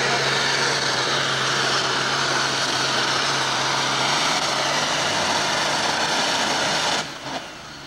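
Super stock pulling tractor's engine running at full power under load as it pulls the sled, loud and steady. It drops off abruptly about seven seconds in.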